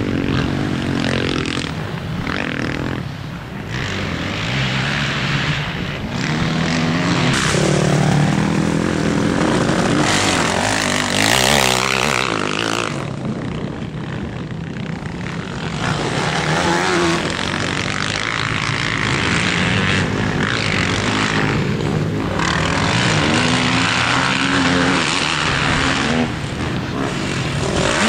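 Motocross dirt bikes' engines revving up and down as riders go round the track, the pitch rising and falling with each acceleration and shift. One bike passes close and loudest about halfway through.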